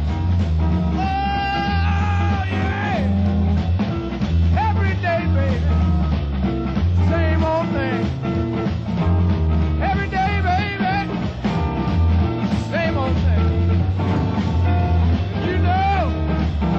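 Rock band playing a song: a heavy bass and drum groove under a lead line that bends and wavers in pitch.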